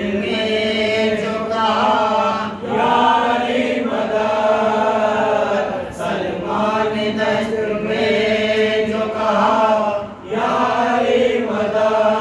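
A group of men's voices chanting a devotional recitation together. It goes in held phrases of three to four seconds, with short breaks between them.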